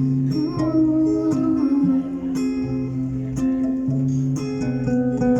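Live music: a guitar-led instrumental passage of a song, with plucked and strummed chords over sustained low notes and no singing.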